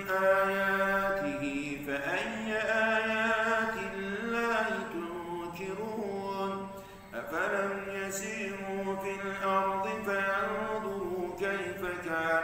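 A man reciting the Quran in Arabic in slow, melodic chanted style, holding long ornamented notes, with a brief pause for breath about seven seconds in.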